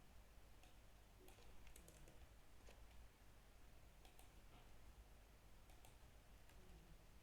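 Faint, scattered key clicks of a computer keyboard being typed on, irregular and about a dozen in all.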